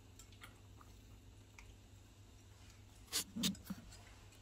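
A spoon stirring beaten egg mixture in a glass bowl: faint soft ticks and squishing, then about three seconds in three louder clinks of the spoon against the glass.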